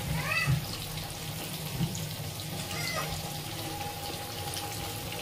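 Fish pieces deep-frying in hot oil in a kadhai, a steady sizzle, over a low steady hum. Two short high-pitched chirps cut through, about half a second in and again about three seconds in.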